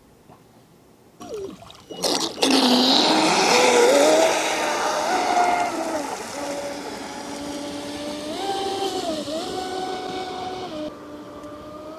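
Traxxas Spartan RC catamaran's brushless electric motor whining as the boat runs across the water, its pitch rising and falling with the throttle, over a steady hiss. It starts after a second or two of near silence and a few knocks, and is loudest early on before easing as the boat moves away.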